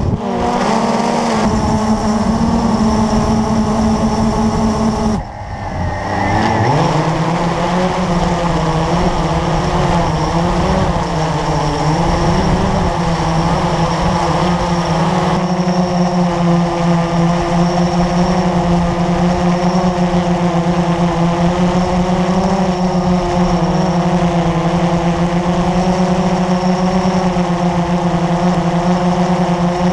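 Quadcopter's electric motors and propellers buzzing with a steady whine, heard from the onboard camera. About five seconds in the pitch and level dip sharply, then climb back and hold steady.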